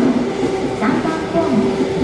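Seibu 9000 series electric train moving slowly over the points, its motors giving a steady hum with a held tone over the rumble of the cars.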